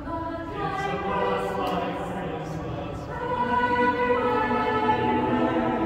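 Mixed choir of men and women singing together, starting about half a second in and growing louder about three seconds in.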